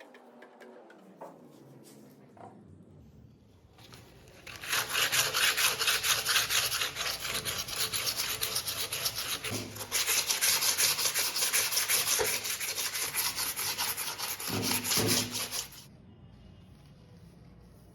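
Sanding: loud, continuous abrasive rubbing on a hard surface, starting about four and a half seconds in, briefly easing around ten seconds, and stopping suddenly near the end.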